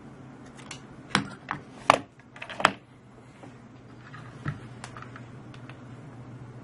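A handful of irregular sharp clicks and taps, several close together and then a few lighter ones, over a faint steady low hum.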